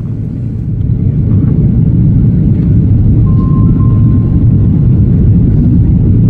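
Steady low rumble of an airliner's cabin noise, jet engines and rushing air heard from a window seat during the descent before landing, growing louder about a second in.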